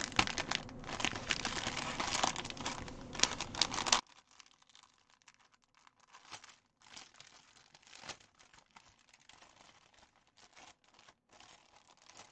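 Clear plastic kit bags crinkling and rustling as they are handled, dense for about four seconds, then cutting off suddenly to faint scattered crinkles and small clicks.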